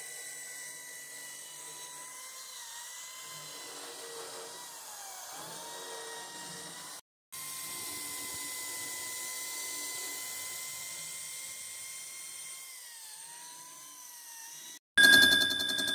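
High-pitched whine of a power tool's spindle machining an aluminium VW AP cylinder head, steady, with its pitch dipping briefly a few times as the cutter takes load. It breaks off for a moment about seven seconds in, and a louder, different machine sound starts just before the end.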